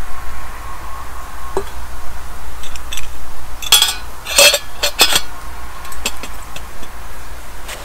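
Liquid poured from a stainless steel cup, a steady trickle that stops about a second and a half in. Then a quick run of metal clinks and knocks, about four to five seconds in, as the steel cup is handled and set down on the wooden table.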